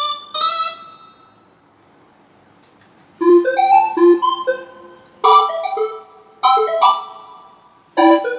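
Yamaha MX61 synthesizer played in a piano-type voice: one note fades out, then after a pause of about two seconds comes a run of short chord phrases, four groups in all.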